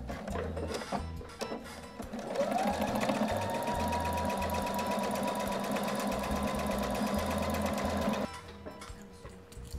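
Husqvarna electric sewing machine stitching: a few separate ticks at first, then its motor speeds up with a rising whine about two and a half seconds in and runs steadily at speed, stopping suddenly about eight seconds in.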